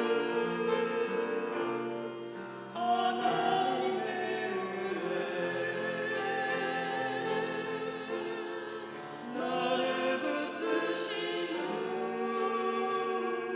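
Classical-style sacred singing with vibrato over instrumental accompaniment, in long held notes, with new phrases beginning about three seconds in and again about nine and a half seconds in.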